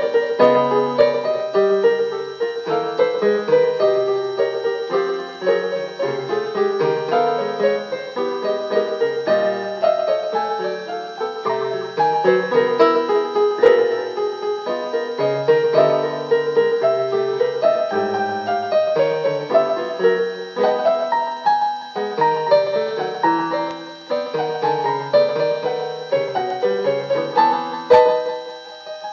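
Piano music: a continuous run of notes with no pauses.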